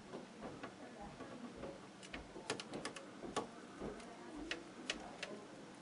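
Irregular light clicks and ticks from small plastic parts being handled, coming more thickly from about two seconds in.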